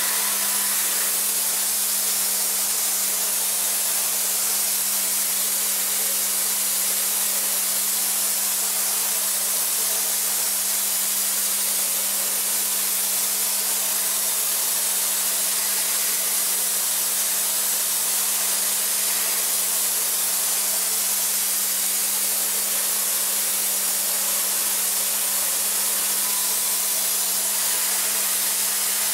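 DMG MORI CMX1100V vertical machining center high-speed milling an aluminium block with a Sandvik end mill in a hydraulic holder, with coolant spraying. Its sound is a steady, even hiss over a constant low hum.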